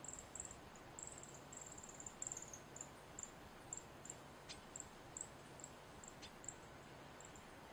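Male northern cardinal giving short, high chip calls at an irregular pace of two or three a second, with a quicker run about two seconds in. Two sharper chips near the middle sweep steeply down in pitch.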